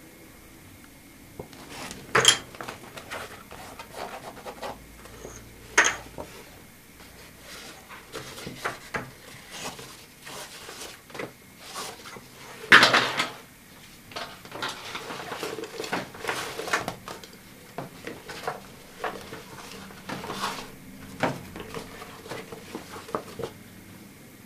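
Handling noise of a Bundeswehr flecktarn multipurpose bag being opened, folded and turned over: rustling of its fabric and coated lining with the strap, and several sharp clicks and knocks at irregular intervals, the loudest about halfway through.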